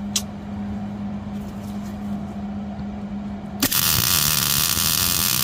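Electric arc welder striking up about three and a half seconds in and running a weld bead on a cracked metal turbo clamp: a loud, even, crackling hiss that starts suddenly and keeps going.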